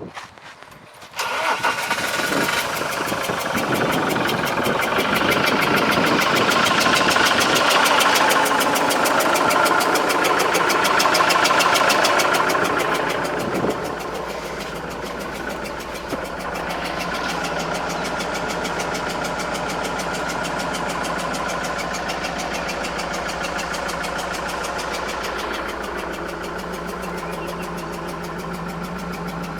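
Boki HY1251's Iveco F1C 3.0-litre four-cylinder diesel starting about a second in, running at raised speed, then settling to a steady idle about halfway through. The engine is sold as rattling ("Motor klappert") and short of power.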